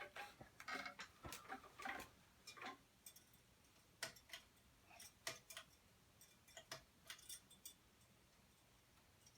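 Nutone Verandah Deluxe ceiling fan running quietly on low in reverse, with a faint low hum and irregular light clicks and ticks. The clicks come thickly for the first three seconds, then thin out and stop about eight seconds in.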